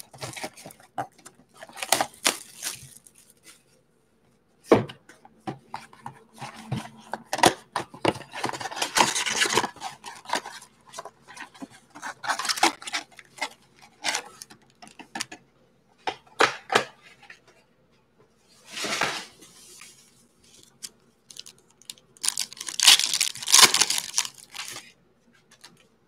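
Cardboard trading-card box being torn open by hand: repeated ripping and rustling of the flaps with sharp taps. A foil card pack crinkles and tears near the end.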